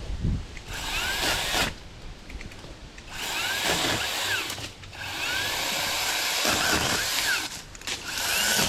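Saker 20-volt cordless mini chainsaw cutting wood in four bursts, its motor whine rising and dropping and the saw stopping between bursts. It bogs down in the cut, which the owner thinks may be a battery that is not fully charged.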